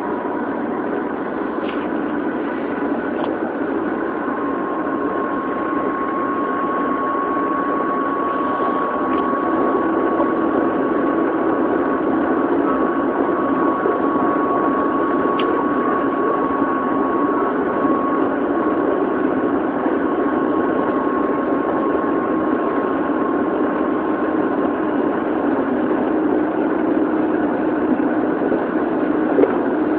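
Odakyu 1000 series electric train (motor car DeHa 1101, Mitsubishi GTO-VVVF) running between stations, heard from inside the car: a steady rumble of wheels on rail with a steady whine over it, growing slightly louder. Heard through a mobile phone's microphone, so it sounds dull.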